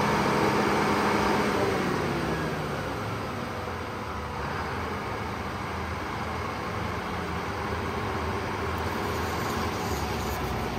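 Engine-driven sawmill machinery running, then its pitch falls about two seconds in as it slows, leaving a steady lower engine drone.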